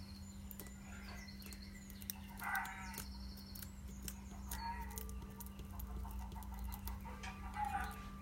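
Chickens calling in the background, three short calls, over a steady low hum and scattered light clicks.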